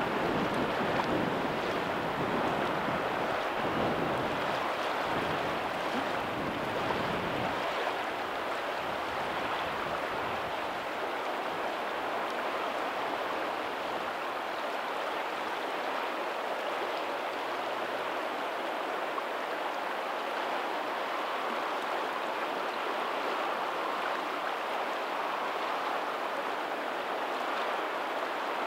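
Steady rush of water at a lagoon's tidal outflow, running over a pebbly shore, with faint ocean surf behind it. A low rumble underneath fades out about eight seconds in.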